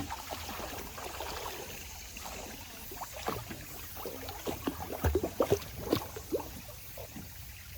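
Water splashing and sloshing in a shallow stream, over a steady background of running water; a quick run of louder splashes comes in the middle.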